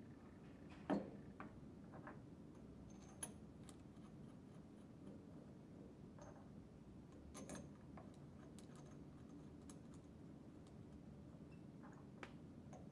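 Faint metal clicks and taps as a pump end cap is seated over the shaft onto the casing and its cap screws are picked up off the wooden bench. The sharpest click comes about a second in, with a few lighter taps later.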